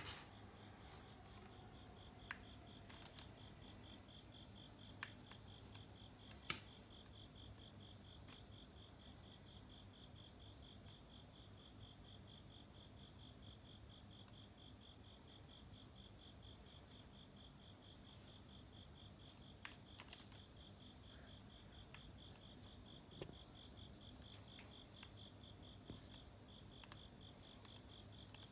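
Faint, steady chirping of crickets: a fast, even pulse that runs without a break. A few soft clicks sound here and there.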